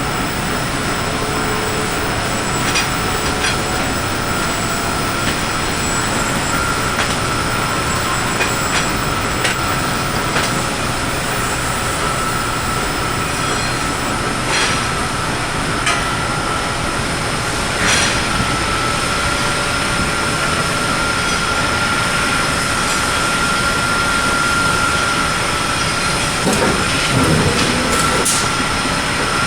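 Steady din of metal-forging shop machinery with a constant high-pitched whine, broken by a few sharp metallic knocks.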